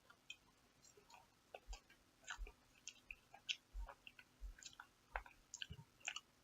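Faint close-up chewing of soft food, mashed potatoes and turkey: irregular small wet mouth clicks and smacks, with a few soft low thumps.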